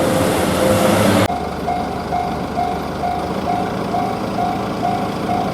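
A loud passing train for about the first second, then an abrupt cut to a Japanese railroad crossing's warning bell ringing its 'kan-kan' tone at about two strokes a second.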